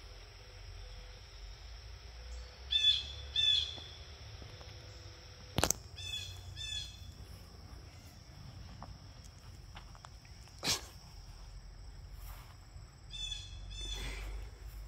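A bird giving short high calls in pairs about half a second apart, three times, over a steady high-pitched insect drone. Two sharp clicks fall between the calls.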